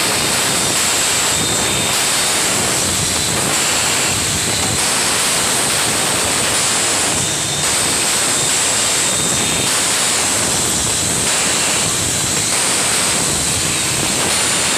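Glass-bottle forming machine (IS machine) running: a loud, steady rushing noise with a constant high hiss.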